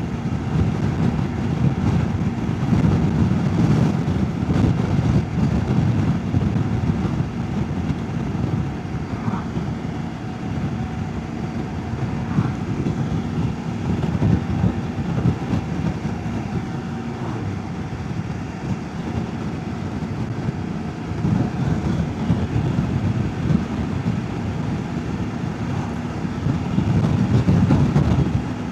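Wind buffeting a rider's microphone at speed on a CFMoto 800MT-X motorcycle, over the bike's engine and road noise. It swells and eases and is loudest near the end.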